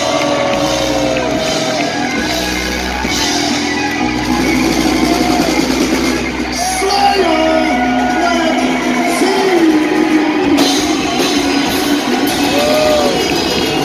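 Live heavy metal band playing loudly with sung and shouted vocals, echoing in a large room.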